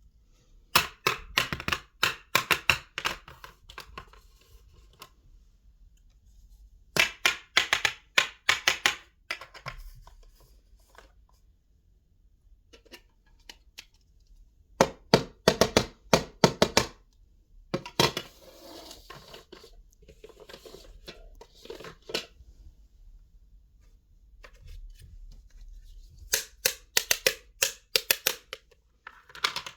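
Rapid clicking and tapping of small plastic kitchen toys being handled, in four bursts of a few seconds each, with fainter rustling and scraping between them.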